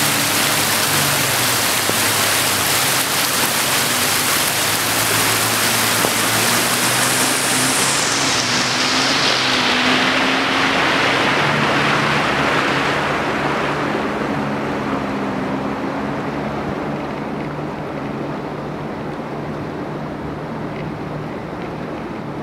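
Fast mountain river rushing over boulders, a loud steady rush of water that turns duller and slowly quieter from about a third of the way in. A low wavering hum runs underneath.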